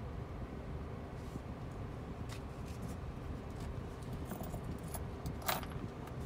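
Steady low rumble inside a car's cabin while it waits in an automatic car wash bay, with a few light metallic clinks, the sharpest about five and a half seconds in.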